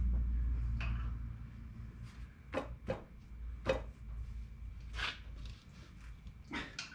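Irregular sharp knocks and clicks, about six in all, of parts being worked against the turbocharger mounting of a Detroit Diesel 6-71 engine as they are tried into place and fail to line up. A low rumble fades out in the first second or two.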